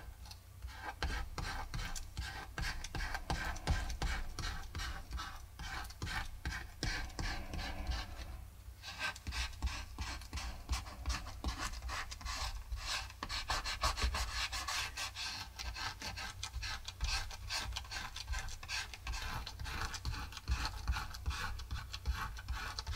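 Fingertips rubbing dried masking fluid off cold-pressed watercolor paper: a continuous dry, scratchy rubbing made of many quick strokes, with a brief pause about nine seconds in.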